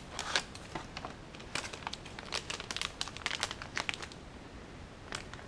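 Metallic anti-static bag crinkling as it is handled and taken out of a small cardboard box: an irregular run of small, sharp crackles.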